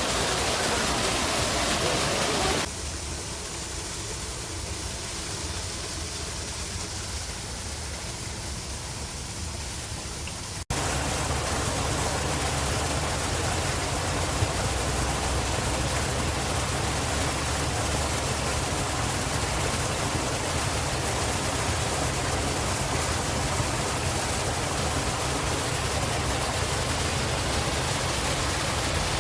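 A steady rushing noise spread evenly from low to high pitch, with no distinct calls in it. It drops to a quieter, duller hiss about three seconds in and jumps back to full level abruptly about eleven seconds in.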